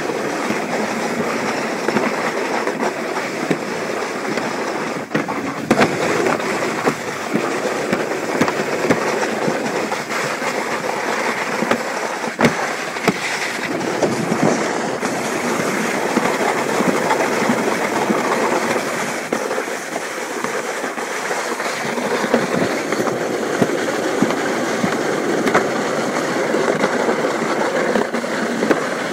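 Alpine slide sled running down its track: a steady rolling noise, broken by a few sharp clacks.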